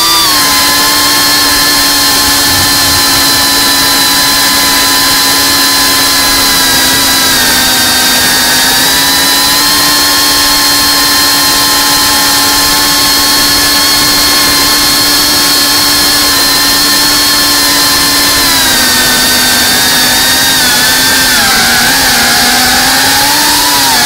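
FPV quadcopter's electric motors and propellers giving a steady whine at a held throttle. The pitch dips and wavers several times near the end as the throttle changes.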